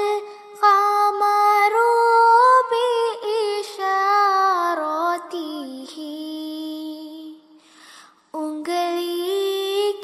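A single high voice sings a naat in Arabic in a slow, drawn-out melody with long held notes; the line sung is "shaqq al-qamar bi-isharatihi" (the moon split at his gesture). There is a short break for breath about eight seconds in.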